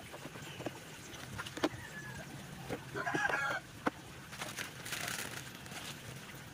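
A chicken calls once, briefly, about three seconds in, over plastic bag crinkling and the light clicks and knocks of plastic machine parts being handled.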